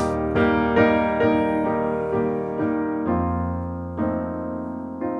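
Slow solo piano music: chords and melody notes struck about twice a second, slowing to about one chord a second after about three seconds in, each ringing and fading.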